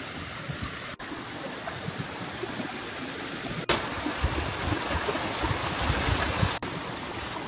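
Shallow stream running fast over rocks and stones, a steady rush of water that steps louder a little past the middle and drops back near the end.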